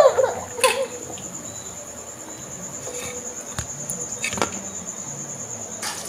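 Peanuts frying in oil in a kadhai with a faint steady sizzle, and a few sharp clicks of a spoon against the pan. Over it runs a steady high-pitched insect trill.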